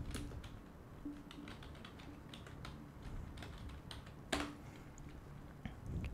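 Computer keyboard typing: faint, irregular key clicks as a short line of text is entered, with one louder click a little past four seconds in.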